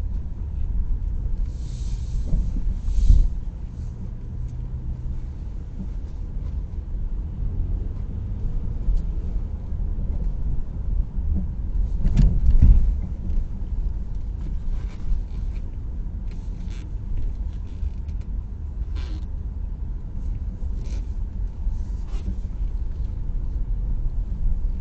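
Steady low rumble of a car driving, road and engine noise heard in the cabin, with a couple of louder bumps about 3 and 12 seconds in.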